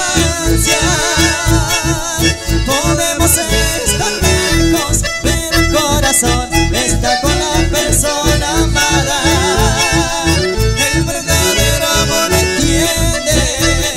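Live band playing an instrumental passage: a button accordion carries a wavering melody over electric bass, acoustic guitar and a steady dance beat.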